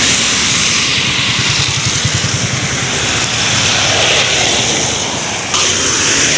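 Vehicle ride on a rain-wet road: an engine running under way under a steady hiss of wind and road noise, the engine's pulsing most plain around two seconds in.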